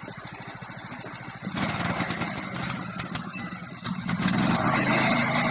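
Riding lawn mower's small engine running with a steady putter, joined about a second and a half in by a louder rattling clatter as it moves off.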